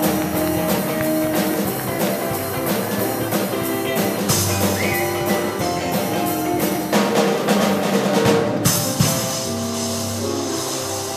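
Live rock-and-roll band playing without vocals: electric guitar, electric bass and a drum kit. The drums grow busier with cymbal crashes from about four seconds in.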